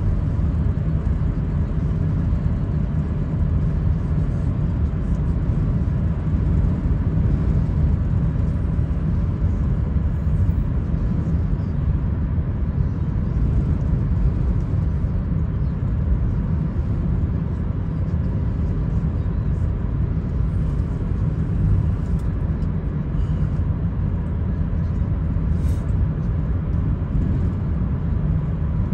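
A car driving at steady speed: continuous low engine and road rumble with no change in pace.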